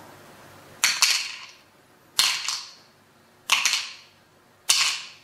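Four plastic counters dropped one at a time into a plastic cup, each landing with a sharp clack and a short ringing decay, about a second and a half apart.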